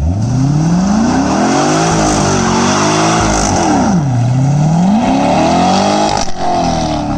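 Chevrolet Corvette C6's 6.2-litre LS3 V8 revving up, holding, dropping sharply about four seconds in, then pulling up again and easing off near the end. The engine is running with a random misfire that is later traced to a loose spark plug wire on cylinder 7.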